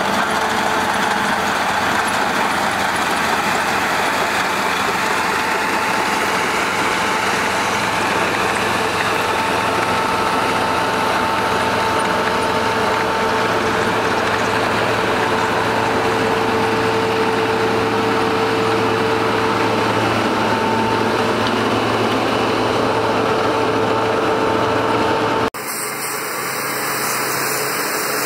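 Construction machine's engine running steadily, with a constant whine over the din. About 25 seconds in it cuts abruptly to a different, slightly quieter machine noise.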